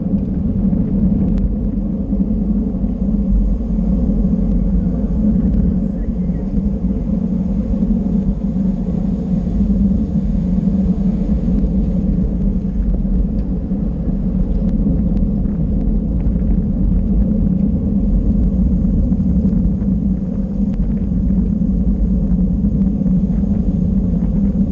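Steady wind and road rumble from a camera riding on a racing bicycle at speed, low and unbroken, with faint ticks over it.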